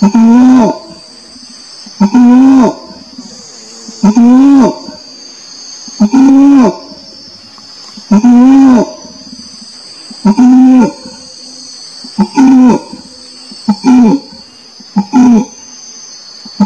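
Orangutan calling: a series of loud calls, each under a second and rising then falling in pitch, coming about every two seconds and shorter and quicker near the end. Under them runs a steady high-pitched insect drone.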